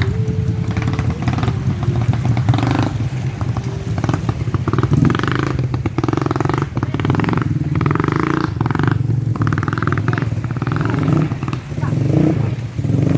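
Motorcycle engine running and revving unevenly under load on a rough trail, with clattering from the bike.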